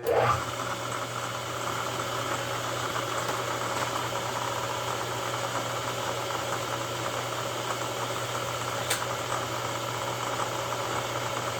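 Supermax milling machine switched on: the spindle motor starts and settles into a steady running hum, turning a coaxial indicator for centring the workpiece. One sharp click about nine seconds in.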